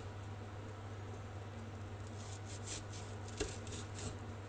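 Kitchen knife slicing through a red bell pepper on a wooden cutting board: a few short, crisp cuts about two and a half seconds in and again near the end, with one knock of the blade on the board about three and a half seconds in.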